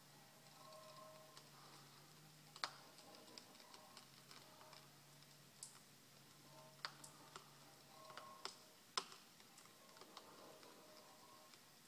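Near silence: a faint low hum with a handful of sharp, scattered clicks and ticks, the loudest about two and a half seconds and nine seconds in.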